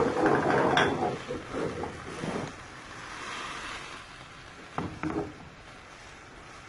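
Chicken stock poured into a hot pan of vegetables and chicken: a loud rush of sizzling in the first second that dies down to a softer hiss. A couple of short knocks come about five seconds in.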